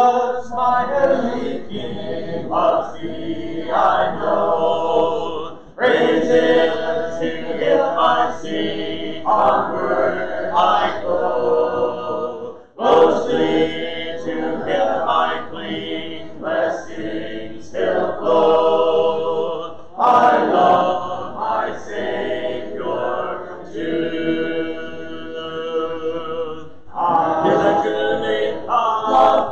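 A church congregation singing a hymn a cappella, voices only with no instruments, pausing briefly between lines.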